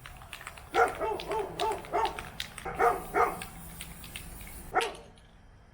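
A dog barking and whining in a run of short calls with wavering pitch, dying away near the end.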